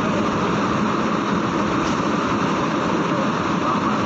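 Steady, loud diesel engine noise of heavy trucks and the ferry, a continuous rumble with no distinct events.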